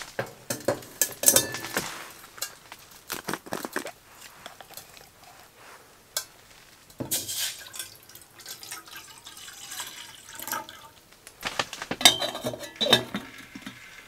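Small metal kettle handled on a steel woodstove top, with clinks and knocks of its lid and handle at the start and again near the end. In between, water is poured into the kettle from a plastic bottle.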